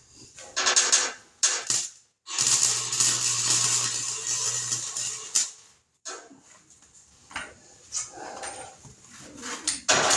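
Wire-feed welder laying welds on sheet-metal bed-side patches: two short crackling tacks, then a steady crackling bead of about three seconds over a low hum. Lighter clicks and knocks follow in the second half.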